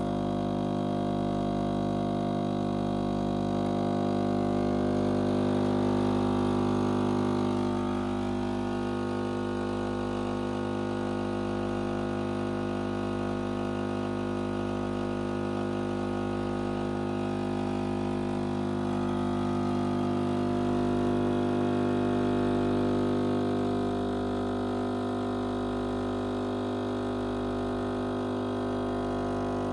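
Siemens EQ.300 fully automatic coffee machine running while it brews a drink: a steady mechanical hum.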